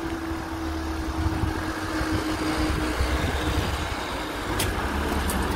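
Level crossing barrier mechanism whining steadily as the booms rise, the tone fading out about three and a half seconds in, over a low rumble of engines. A few sharp clicks come near the end.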